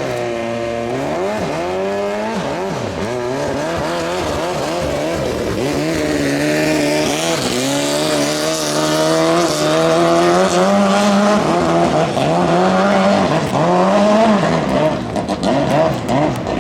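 Racing-boat engine running and revving, its pitch rising and falling again and again and climbing overall, with a rushing hiss above it toward the middle. The 5K class runs Toyota 5K four-cylinder petrol engines.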